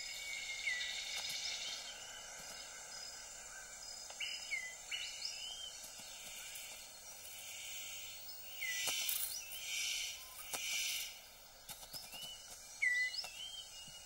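Rainforest ambience: a steady high insect chorus, with short hooked whistled bird notes now and then. Two louder hissing swells come a few seconds past the middle.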